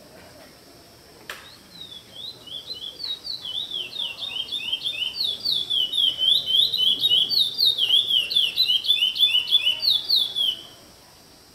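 A caged songbird singing one long, fast string of sharp downslurred notes, about eight a second, growing louder over some nine seconds and cutting off suddenly near the end. A single sharp click comes just before the song begins.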